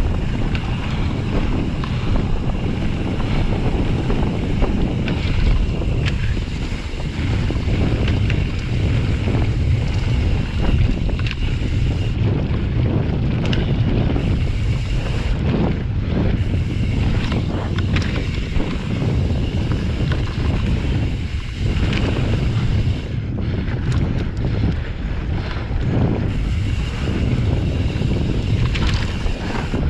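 Wind buffeting the action camera's microphone while a Pyga Hyrax mountain bike rolls fast down a dry dirt singletrack. Tyre noise on the dirt runs under it, with frequent short rattles and knocks from the bike.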